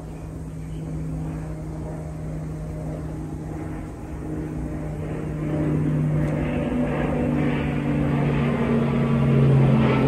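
An aircraft engine droning overhead, growing steadily louder as it approaches, its pitch sinking slightly in the last few seconds.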